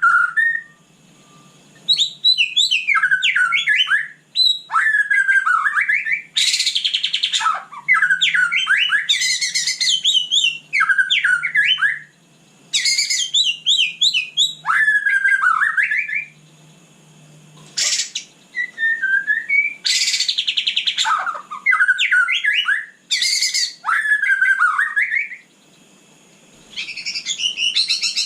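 White-rumped shama singing: phrases of rapid, varied whistled notes lasting one to three seconds, separated by short pauses. Several brief harsh, buzzy notes are mixed in.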